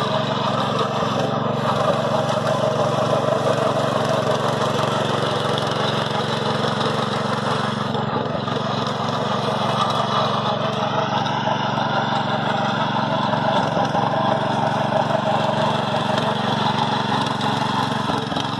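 Power weeder's small engine running steadily under load as its rotary tines churn the soil.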